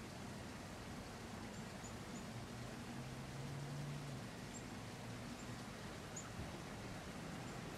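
Faint outdoor ambience: a steady low hum that swells briefly about three seconds in, with a few short, high chirps scattered through.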